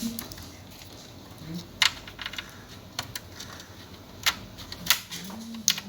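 Scattered sharp clicks of computer keyboard keys, a few single presses about a second apart.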